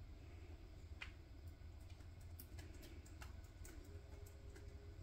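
Near silence: a low steady room hum with faint, scattered small clicks.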